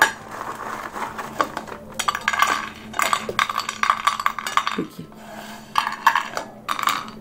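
Crispy fried besan-coated kabuli chickpeas (chickpeas coated in gram-flour batter) dropped by hand onto a ceramic plate, clattering and rattling in several bursts of quick hard clicks. The dry, hard rattle is a sign of how crisp they have been fried.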